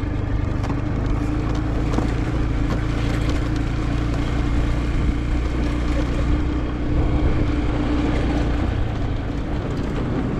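Motorbike engine running steadily under way, a constant low hum over a steady rushing noise.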